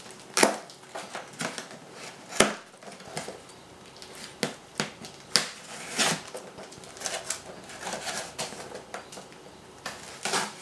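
A knife cutting the plastic packing straps on a cardboard box, with irregular sharp snaps and clicks and the cardboard being scraped and handled.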